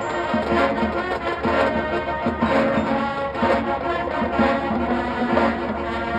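High school marching band playing: brass holding sustained chords over regular percussion strikes.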